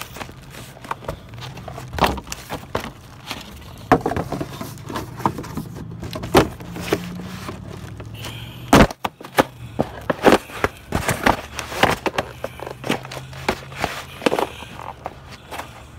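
Empty cardboard shoe boxes being stamped on and crushed underfoot: a long run of irregular crunches, creases and tearing cardboard. The sharpest, loudest crunch comes about nine seconds in.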